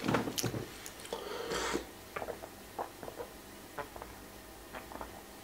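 A person eating a grilled ham-and-cheese sandwich. There are chewing and handling noises in the first two seconds, then soft, spaced clicking gulps as Coca-Cola is drunk from a bottle.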